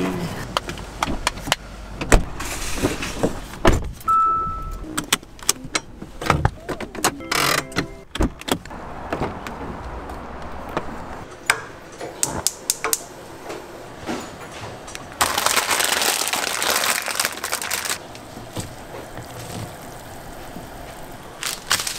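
Handling noises around a car: clicks and knocks of the door and its interior handle, with keys jangling. About four seconds in there is a loud thump, followed by a short electronic beep. Later a steady hiss runs for about three seconds.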